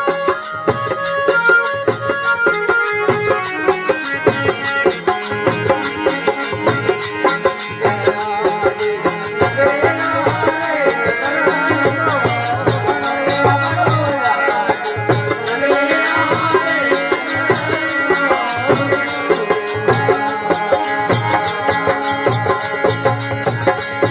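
Rajasthani folk devotional bhajan music: a melody over a steady, regular drum beat.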